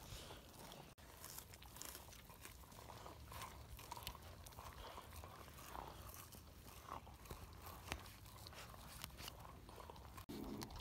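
Faint crunching and chewing as 8.5-week-old livestock guardian dog puppies gnaw at a lump of raw meat, in small scattered crunches.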